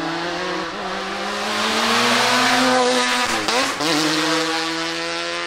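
Twin-turbo 13B rotary engine of a Group C race car accelerating hard past, its pitch climbing and loudest about two to three seconds in. The pitch dips sharply and climbs again about three and a half seconds in, and the engine keeps pulling as it moves away.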